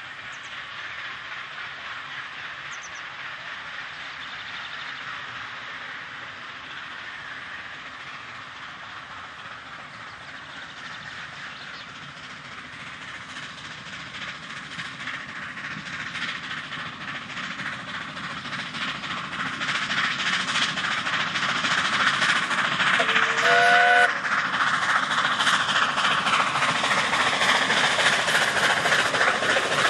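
NG/G16 Garratt steam locomotive No. 87 hauling a narrow-gauge train, its exhaust beats growing steadily louder as it approaches and passes close by. A short whistle blast sounds about three-quarters of the way through.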